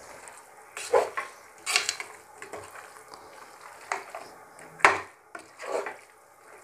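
Chicken pieces in thick masala being stirred and turned with a spoon in an aluminium pressure cooker. The spoon knocks and scrapes against the pot several times, loudest about five seconds in.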